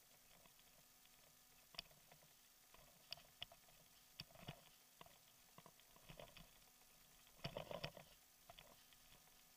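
Faint, scattered knocks and rattles from a bicycle jolting over a bumpy dirt road, with a denser burst of louder knocks about seven and a half seconds in.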